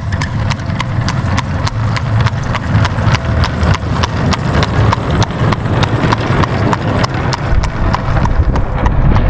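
Horse hooves clip-clopping at a steady pace, about four to five sharp strikes a second, over a continuous low rumble.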